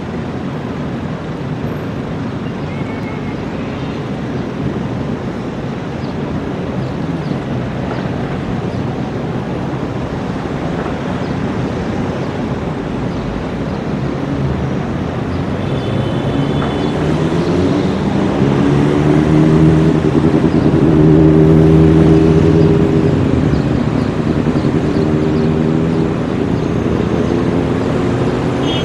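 Alstom Citadis 302 trams running through a tram stop: steady rolling and running noise, then about halfway through an electric traction whine rises in pitch and holds as a tram pulls away, the loudest part.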